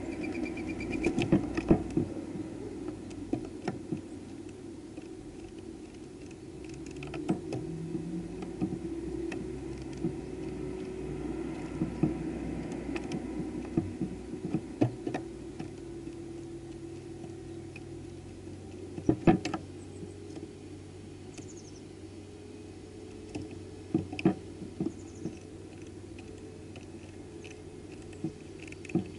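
Irregular sharp taps and clicks of birds on the glass feeder house, over a steady low hum, with a couple of faint high bird chirps in the second half.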